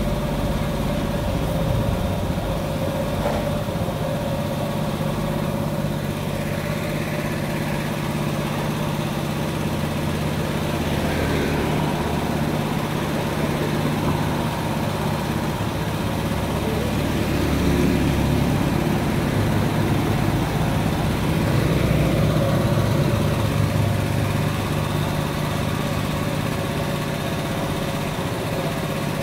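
Pressure washer motor running with a steady hum at a motorcycle wash, while vehicles pass on the road, growing louder about ten seconds in and again around twenty seconds in.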